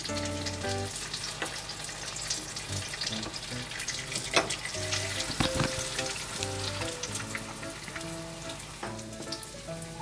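A steady crackling sizzle of food frying, under light background music of short plucked notes.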